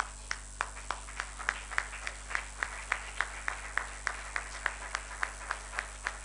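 Audience clapping in unison in a steady rhythm, about three claps a second, with looser clapping underneath.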